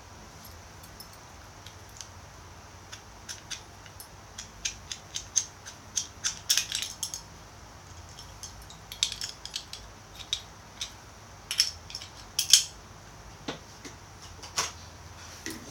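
Clicks and taps of small hard parts being handled, in irregular clusters, the loudest a few seconds before the end.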